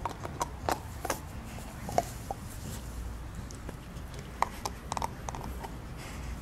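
Dog mouthing and gnawing at a hard filled chew bone on grass: scattered soft clicks and knocks of teeth on the bone, a few at a time with pauses between.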